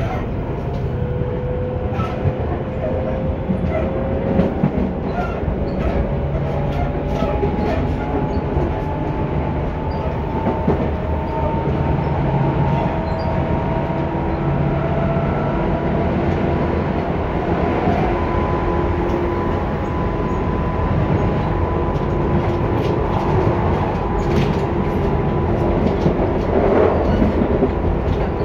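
Running sound of a Tobu 10030 series electric train, with the field-chopper-controlled DC traction motors and gears whining. The whine rises slowly in pitch as the train gathers speed, then holds steady, over rumbling wheels and scattered rail-joint clicks.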